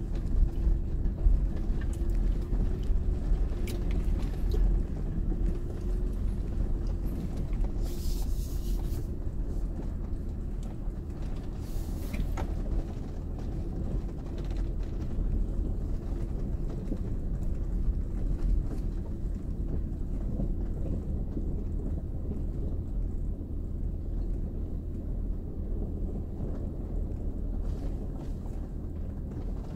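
Cabin noise of a Kia Mohave SUV driving slowly over a rough dirt and gravel track: a steady low rumble of engine and tyres, with a few knocks and rattles over bumps in the first half and a short hiss about eight seconds in.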